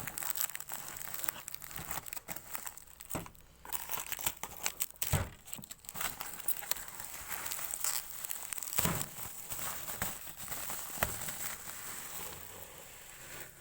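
Packaging being handled and unwrapped during an unboxing: irregular crinkling and tearing rustles, with a few dull knocks about five, nine and eleven seconds in.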